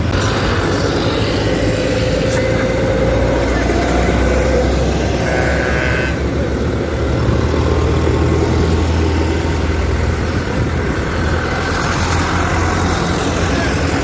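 Diesel tractor engines running steadily close by, a continuous low drone.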